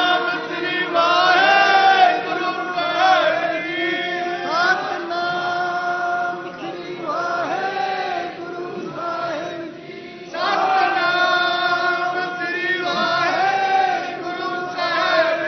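A group of male voices chanting a Sikh devotional hymn in long, drawn-out phrases, with a short lull about ten seconds in.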